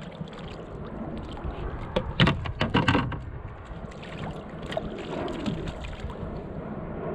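Kayak on choppy water, with wind rumbling on the microphone and water sloshing against the hull. A quick cluster of sharp knocks and splashes about two seconds in is the loudest part.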